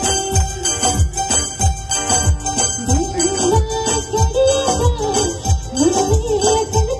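Music with a steady, deep drum beat, a wavering melody and jingling bells.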